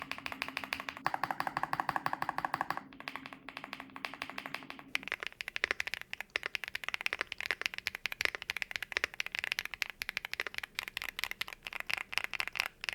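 Fast typing on a Rainy 75 Pro mechanical keyboard fitted with Kailh Cocoa switches: a dense, uneven run of key clacks. A faint low hum sits underneath for the first five seconds.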